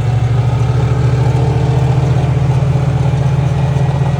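Gas golf cart engine running steadily under throttle as the cart drives, a loud, even low drone.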